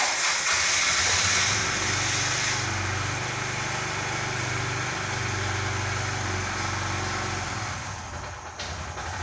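A motor running steadily: a low, even hum with a hiss over it, the hiss strongest in the first two or three seconds.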